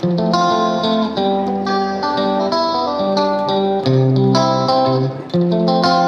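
Background instrumental music: a run of crisply plucked notes over chords, changing every fraction of a second.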